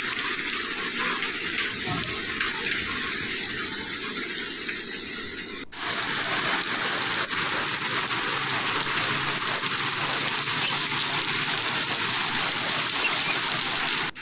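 Heavy rain falling steadily as a continuous hiss. About six seconds in it cuts abruptly to a louder, brighter stretch of rain.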